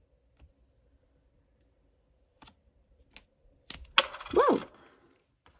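A magnetic needle minder's magnet clicking sharply against its backing a few times, the loudest two clicks close together about four seconds in. Right after them comes a short hummed vocal sound that rises and falls in pitch.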